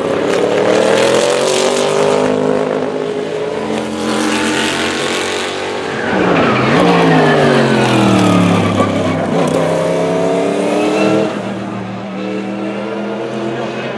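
Group C sports-prototype race car engines at high revs on track. The engine note climbs, drops sharply about six seconds in and falls away for two seconds, then climbs again and backs off about eleven seconds in.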